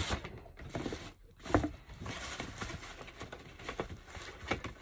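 Rustling and small knocks of a cardboard gift box and its paper wrapping being handled and opened, in an uneven run of crinkles and taps.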